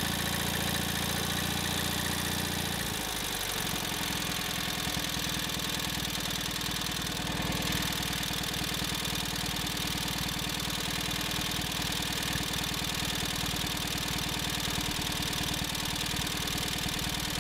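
Kohler MV18S 18 hp twin-cylinder engine of a Craftsman GT6000 garden tractor running steadily on freshly fitted piston rings. Its running speed shifts about three seconds in and then holds steady.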